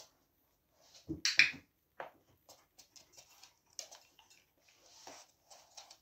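A dog's footsteps on a laminate floor: claws clicking and paws thudding as it moves about, with two louder thumps about a second in, then lighter scattered clicks.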